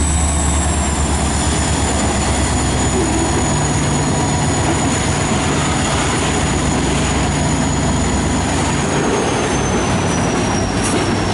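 CSX SD40-3 and GP40-3 diesel locomotives rumbling past at slow speed, with their deep engine drone strongest at the start. Loaded covered hopper cars then roll by on steel wheels, with a thin high wheel squeal that sinks slightly in pitch near the end.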